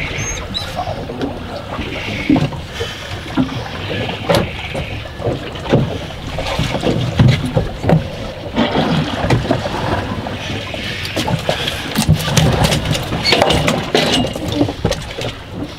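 Water slapping against the hull of a drifting fishing boat, with irregular knocks and clatter on board.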